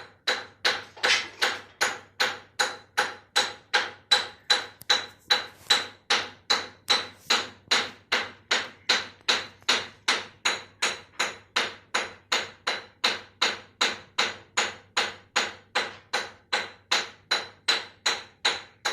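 Steady hand hammering at about two and a half blows a second, each blow sharp with a short metallic ring. This is repair work on a chakki flour mill.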